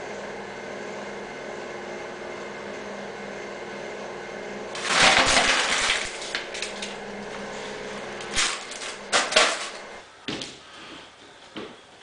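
A person blowing their nose into a tissue: one loud, noisy blow lasting about a second, roughly five seconds in, then two shorter blows a few seconds later, over a steady electrical hum. A few short knocks follow near the end.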